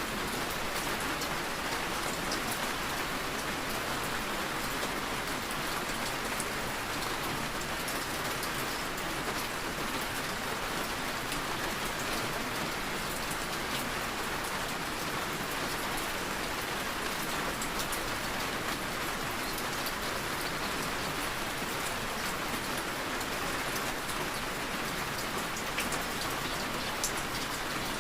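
Steady rain falling on a surface, an even hiss of drops with fine scattered patter.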